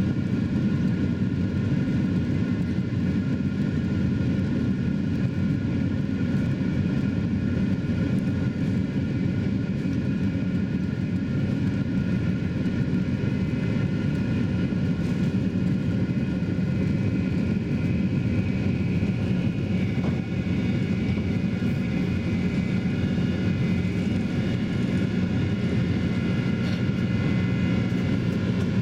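Boeing 767's twin jet engines at takeoff thrust, heard from inside the cabin during the takeoff roll and initial climb: a loud, steady roar with a high whine above it.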